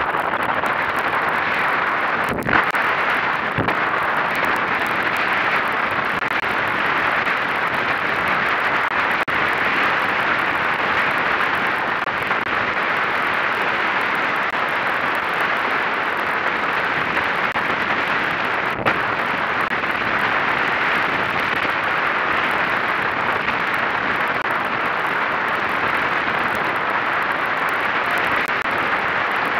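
Steady rush of wind and water spray on the camera of an A-class catamaran sailing through chop, with a few sharp knocks.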